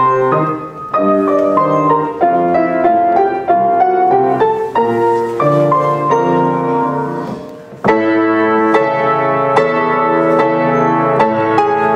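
Piano music playing, chords and melody changing every half second or so, with a brief drop just before a strong new phrase about eight seconds in.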